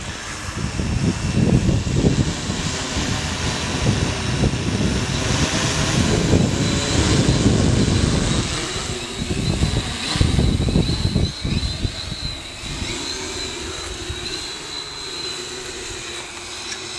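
Octocopter drone's electric motors and propellers running as it flies low, with a heavy gusty rumble for the first twelve seconds or so that then eases. A thin, slightly wavering high whine runs through the second half.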